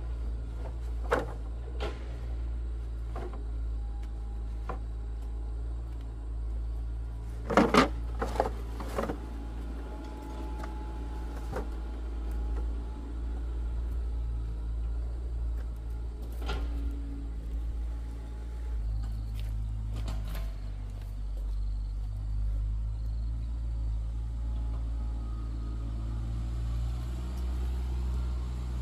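Scattered knocks and taps, including a cluster of loud ones about eight seconds in, over a steady low hum.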